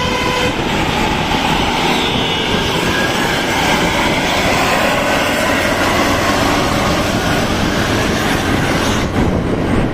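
Large bus passing close, a loud steady rush of engine, tyre and wind noise. Its musical multi-tone telolet horn stops about half a second in.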